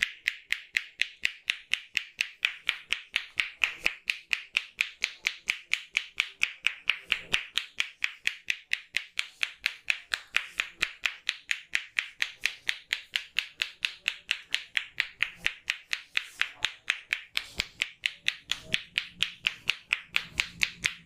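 Rapid, even hand strikes of an Indian head massage, each a sharp clap, about four to five a second without a break.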